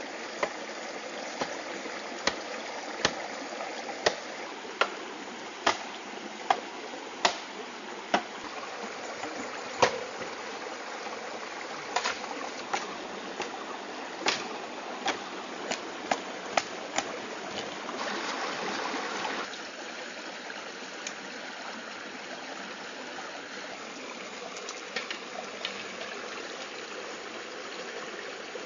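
Shallow stream running over rocks, with sharp blade strikes cutting into bamboo about once a second for the first two thirds, then the stream alone with a few lighter knocks.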